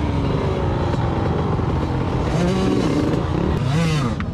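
Small off-road motorcycle engines running, their pitch rising and falling as the throttle is opened and closed, twice in the second half.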